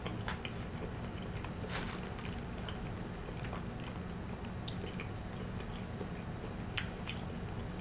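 Faint closed-mouth chewing of a mouthful of KFC chicken pot pie: scattered soft wet mouth clicks over a steady low hum.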